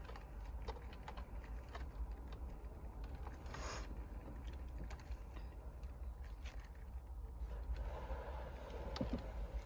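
Faint rustling and light clicking of insulated wires in a car stereo's wiring harness being handled and twisted together by hand, as the reverse camera's lead is spliced onto the stripped pink wire, over a low steady hum.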